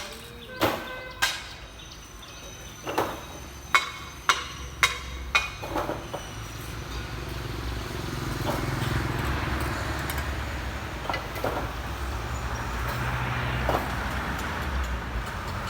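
A series of sharp knocks and clinks, some ringing briefly, then a steady engine rumble that builds after about six seconds and runs on.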